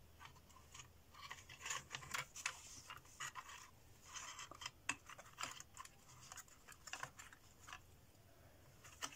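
Faint, irregular clicks and short scrapes of thin wooden parts being handled and pressed together as a wooden gear is fitted onto the mechanism of a model clock.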